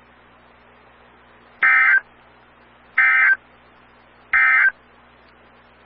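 Emergency Alert System end-of-message data signal: three short, harsh digital warbling bursts, evenly spaced about a second and a half apart, marking the end of the severe thunderstorm warning broadcast.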